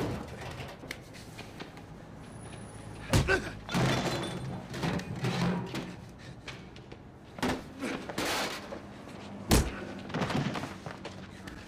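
Fight sound effects: a few hard impacts of blows and bodies striking walls and metal trash cans, the loudest near the end, with scuffling and shuffling between.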